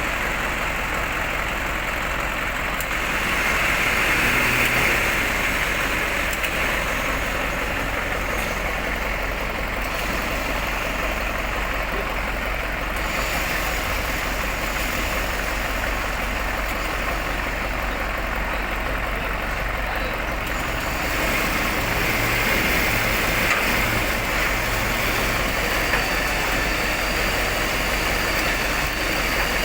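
A truck engine running steadily.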